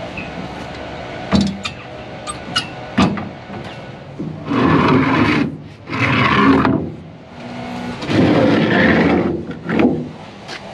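Wooden boards scraping and dragging as they are pulled out from under a loaded hand pallet jack on a trailer deck, in three rough pulls, after a few sharp knocks in the first three seconds.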